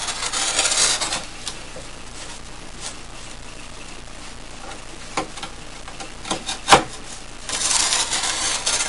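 Utility knife scraping through paper along a metal ruler: two cutting strokes, one at the start and one near the end, with a few sharp knocks in between, the loudest about two-thirds of the way through.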